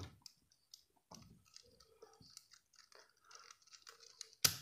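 Faint plastic clicks and scrapes from a rolling-and-sliding cylinder puzzle (corn cube) as its pieces are slid and its layers turned by hand, with one sharper click near the end.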